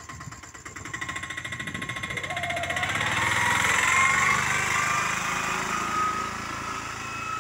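Small goods pickup's engine running with a fast rattling beat, growing louder and rising in pitch as the truck moves off and passes, then slowly fading as it drives away.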